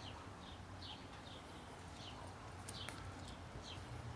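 Bird chirping faintly in short, high, falling notes, about two a second.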